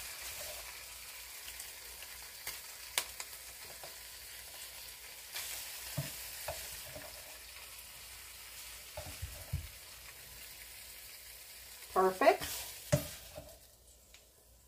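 An egg frying in a pan with a steady sizzle, broken by a few sharp clicks and knocks, busiest a couple of seconds before the end. The sizzle dies away about a second before the end.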